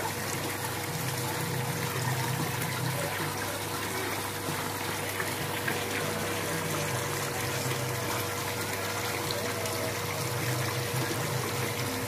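Intex LED waterfall pouring a steady sheet of water into an above-ground pool, a constant splashing rush with a steady low hum underneath.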